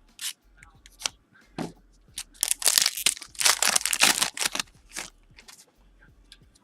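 Foil trading-card pack wrapper crinkling and tearing in a run of irregular crackly bursts, loudest in the middle.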